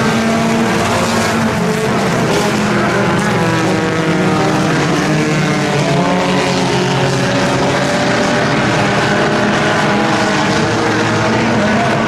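Several compact-class race cars' four-cylinder engines running hard together, their overlapping engine notes rising and falling as drivers get on and off the throttle through the turns.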